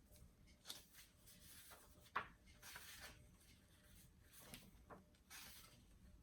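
Faint handling of an old hardcover book: soft rustling swishes as it is opened and its pages are turned, with a light knock about two seconds in.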